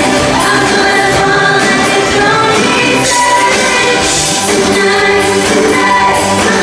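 Live pop music: a singer and band performing a song.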